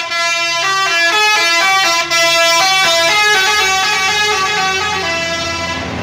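Basuri-type telolet multi-tone air horn on a tour bus playing a quick melody of changing notes, stopping shortly before the end, with the bus's engine hum low underneath.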